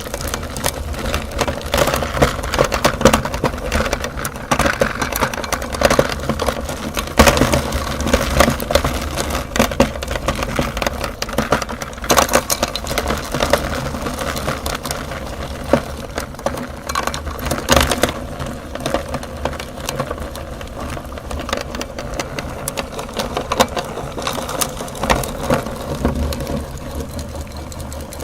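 Electric meat grinder motor running steadily, with dense crackling and crunching as hard food is forced through the grinder.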